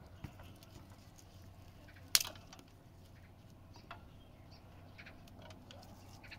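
Scattered light taps and clicks, with one sharp knock about two seconds in.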